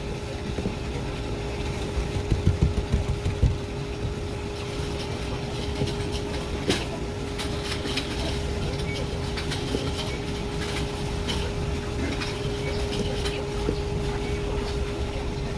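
Steady machine hum with one held tone over a low rumble. A few low thumps come in the first few seconds, then light scattered ticks and taps.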